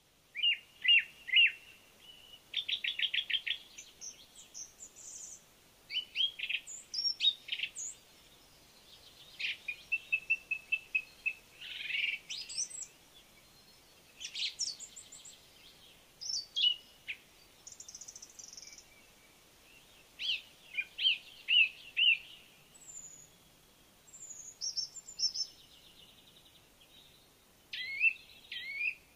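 Birdsong: a steady succession of varied high chirps, rapid trills and short whistled phrases.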